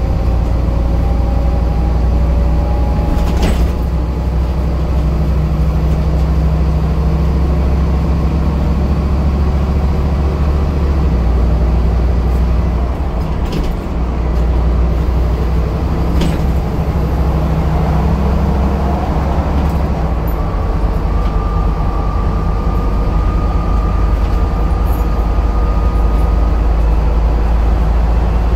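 Scania N230UD double-decker bus's five-cylinder diesel engine running under way, heard from inside the bus as a loud, steady low drone. A faint whine rises in pitch twice over it, and a few short knocks and rattles come from the body.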